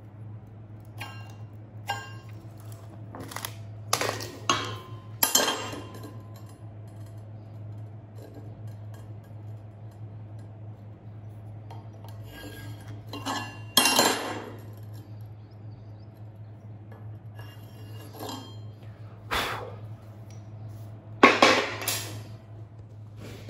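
Irregular metal-on-metal clanks and clinks from steel parts and tools being handled and set down on steelwork, each with a short ring, over a steady low hum. The clanks come in small clusters, with the loudest near the end.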